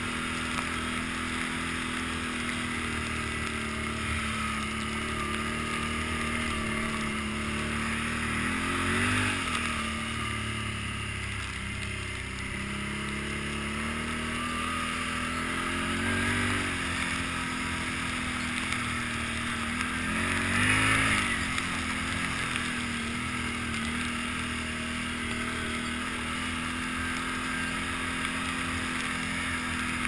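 2009 Can-Am Outlander 800 Max ATV's V-twin engine running at a steady cruise. Its pitch rises and falls three times as the throttle is opened, the last time the loudest.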